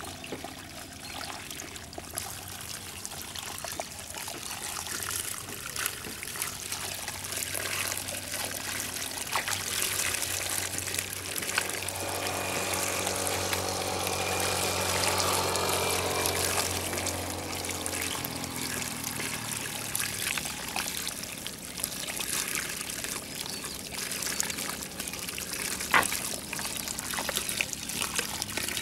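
Muddy water pouring and trickling steadily from a cut in a mud bank into a bamboo basket full of small fish. A steady motor hum rises in the background partway through and stops abruptly about two-thirds of the way in.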